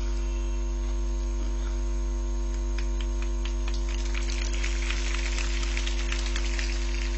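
Steady electrical mains hum, with several steady tones above it. Light clicking and crackle join in from about two and a half seconds in.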